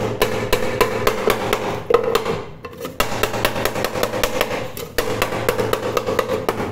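Rapid hammer blows on a wooden block held against a dented pressure cooker, knocking the metal back into shape. The strikes come several a second, with a short pause about halfway through.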